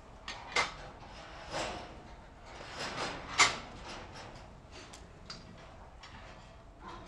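Holstein dairy cows eating hay at a metal feed barrier: the hay rustles as they pull and chew at it, with scattered clicks and knocks. The loudest comes about three and a half seconds in.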